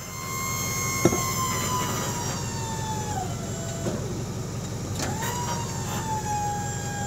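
Hydraulic pump of the hy-rail guide-wheel system whining as it drives the rail-wheel arms. Its pitch sags as the load builds toward the end of travel, where the arms lock, and it runs twice. A sharp click comes about a second in and another as the second run starts, over a low steady hum.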